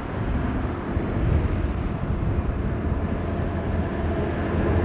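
Burlington Northern diesel freight locomotives approaching, their engines a steady low rumble that grows a little louder near the end.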